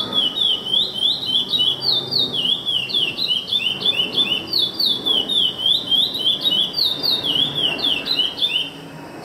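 A caged songbird singing a fast, unbroken run of high, quick sweeping notes, which stops abruptly near the end. A faint murmur of people lies underneath.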